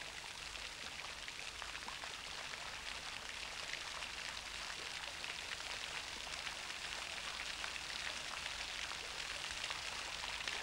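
Fountain jets spraying and splashing back into the basin: a steady hiss of falling water with a fine patter of droplets.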